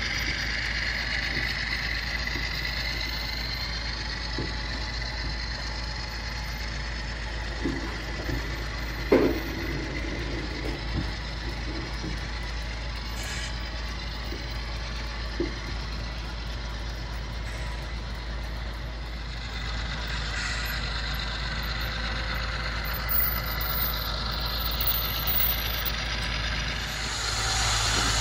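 HO-scale model double-stack freight train rolling past, a steady rumble of small wheels on track with a few sharp clicks. Near the end a diesel engine sound, from the model locomotive, grows louder as it comes close.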